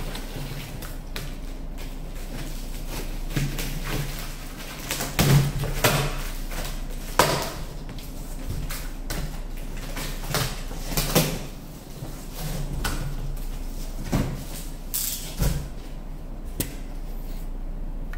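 Utility knife slicing through packing tape on a cardboard carton, then the cardboard flaps being pulled open and folded back, with a string of rasps, scrapes and knocks of stiff cardboard.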